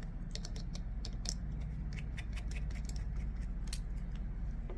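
Light, irregular metallic clicks of a small Torx driver working the T6 screws out of a folding knife's pocket clip, over a steady low hum.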